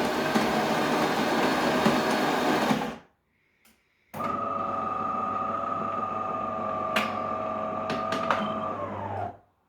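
Bean-to-cup coffee machine making a short coffee: a loud grinding for about three seconds that stops abruptly, then after a brief pause a steady motor or pump hum with a couple of clicks, which drops in pitch as it stops near the end.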